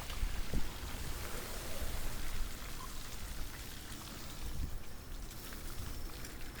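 Steady wash of wind and water noise, with a low rumble of wind on the microphone and a few faint ticks, like rain or spray.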